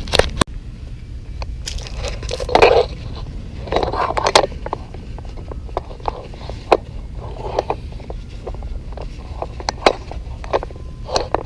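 Hand handling noises on the mower: scraping and crunching rubs with scattered sharp clicks, over a steady low rumble.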